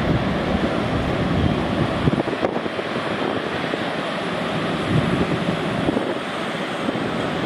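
Steady jet noise from an Airbus A350's Rolls-Royce Trent XWB engines at low power as the airliner taxis, with a faint thin high whine running through it. Wind buffets the microphone with uneven low rumbles.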